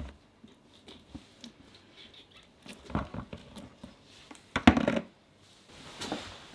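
Uncapping fork scratching the wax cappings off a wooden honeycomb frame over a plastic bucket: soft scraping and small clicks, with two louder clusters of knocks about three seconds and nearly five seconds in.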